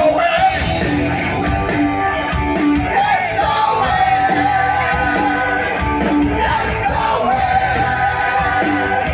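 Live rock band playing, with a male lead singer holding long, wavering notes over bass guitar and drums.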